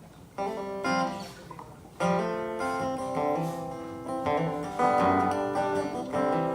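Acoustic guitar playing the opening bars of a song, notes ringing out. It comes in about half a second in, with a stronger chord about two seconds in.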